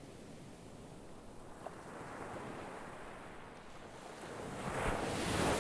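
Waves washing, an even rush of water that swells to its loudest near the end.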